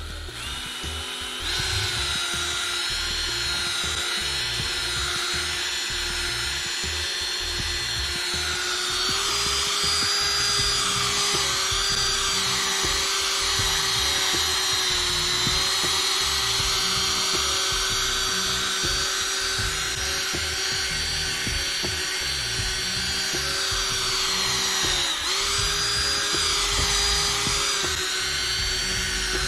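Electric drill spinning a soft foam polishing pad, its motor whining steadily from about a second and a half in, the pitch wavering a little and dipping briefly near the end as the pad meets the decal.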